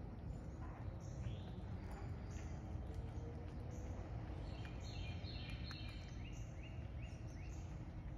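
Small birds chirping over a steady low outdoor rumble, with a run of about four quick falling notes in the second half.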